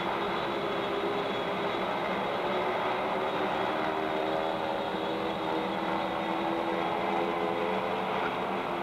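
Fairchild C-119 Flying Boxcar's twin radial piston engines and propellers running in a steady drone as the transport rolls along the runway.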